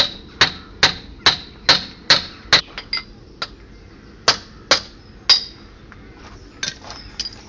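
A hammer knocks the end of a front-wheel-drive driveshaft out of the wheel hub: about a dozen sharp, ringing metal blows, quick at first at about two a second, then more spaced out, with a few lighter taps near the end. This is the splined outer CV joint being driven free of the hub.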